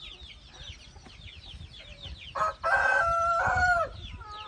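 A rooster crows once, about two and a half seconds in: a loud call of about a second and a half that ends on a falling note. Quick, high chirping goes on throughout.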